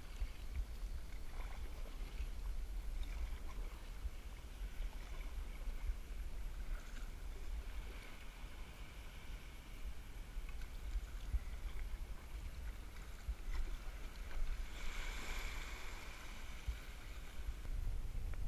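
Water splashing and lapping around a kayak hull as it is paddled through shallow water, over a steady low rumble of wind on the microphone. A louder burst of splashing comes about fifteen seconds in.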